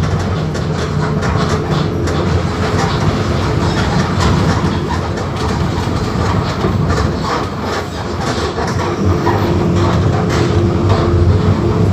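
Diesel engine of a Mercedes-Benz OF-1721 BlueTec 5 bus running steadily while the bus is under way, with continual rattling and clatter from the bus body.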